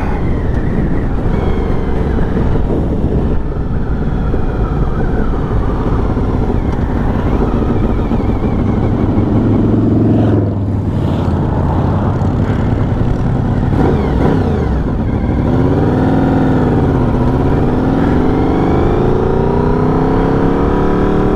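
Honda VFR750 (RC36) V4 engine running under way, heard with wind rush. The revs climb for about ten seconds and drop suddenly. They dip and rise again around fifteen seconds in, then climb steadily near the end.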